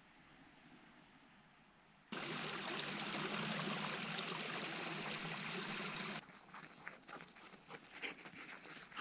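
A small, shallow rocky creek running, a steady rush of water that starts about two seconds in and cuts off abruptly about four seconds later. After it come light, scattered footsteps crunching on a gravelly dirt track.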